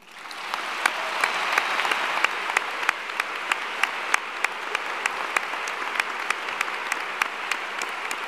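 A large audience applauding, swelling up in the first half-second and then holding steady. One nearby pair of hands claps sharply and evenly, about three claps a second.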